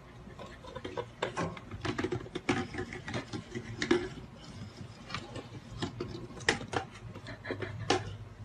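A small plastic bottle knocking and rolling on a wooden floor as a hamster pushes it about: irregular light clicks and taps, a few every second.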